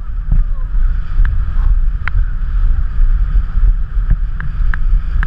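Wind buffeting the microphone and water rushing under a towed inflatable tube as it skims across a motorboat's wake: a steady heavy rumble with a hiss on top and a few sharp ticks.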